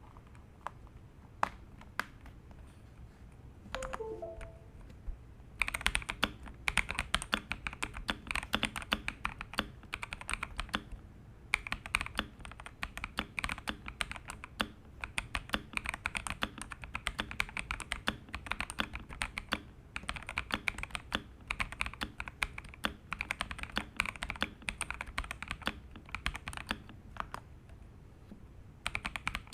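Xinmeng X87 mechanical keyboard with WS Morandi switches being typed on. There are a few scattered keystrokes at first, then steady fast typing from about five seconds in, with short pauses near the middle and near the end.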